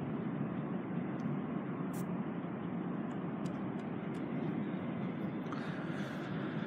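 Steady low outdoor rumble with a few faint clicks, and a brief rise in hiss about five and a half seconds in.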